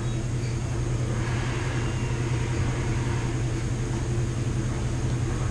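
Steady low mechanical hum and drone from household machines running together in the background: a washer, a clothes dryer and a 3D printer.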